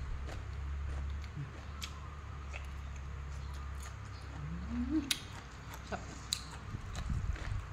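Close-up chewing and mouth clicks of someone eating cucumber salad with rice noodles by hand: scattered short wet smacks and clicks, over a steady low hum.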